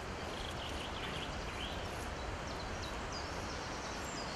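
Steady outdoor background noise with a few faint, short, high bird chirps.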